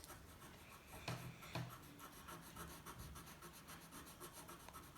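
Faint scratching of a pencil colouring on paper in quick back-and-forth shading strokes, with two slightly louder taps about a second and a second and a half in.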